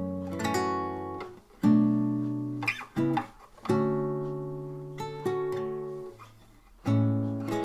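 Black Valencia VC104EBK nylon-string classical guitar played slowly, chord by chord, each chord left to ring and fade before the next. There is a short lull before a final chord near the end.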